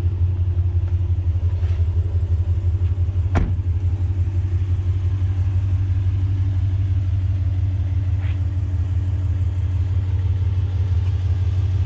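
Dodge Durango R/T's 5.7-litre HEMI V8 running steadily at a low idle, a deep even rumble. One sharp click sounds about three and a half seconds in.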